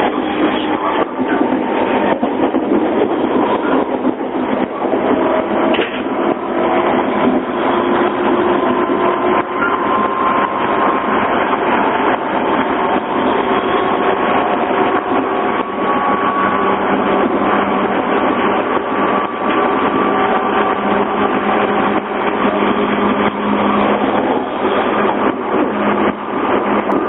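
811 series electric train's externally fanned traction motors whining over steady running noise, several tones climbing slowly in pitch as the train gathers speed. The whine is jet-like, the unusual acceleration noise of this type of motor.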